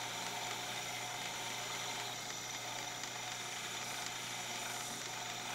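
Bench polishing lathe running with a steady hum, its cloth buffing wheel spinning against a small silver-and-enamel jewellery piece held to it.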